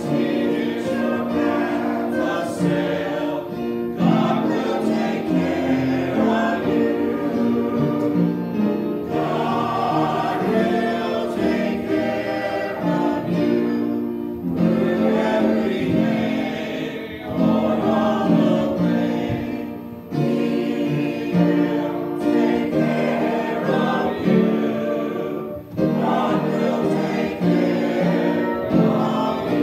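A small choir of mixed men's and women's voices singing a hymn together, in phrases of a few seconds with short breaks between them.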